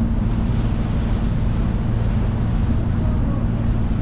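Sightseeing boat's engine running steadily under way, a low drone, with wind buffeting the microphone and the rush of water from the boat's wake.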